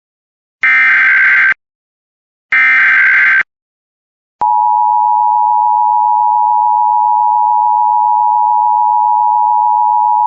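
Emergency Alert System tones: the last two of the three SAME digital header bursts, each about a second long and a second apart. About four and a half seconds in, the steady two-tone EAS attention signal (853 and 960 Hz together) begins and holds.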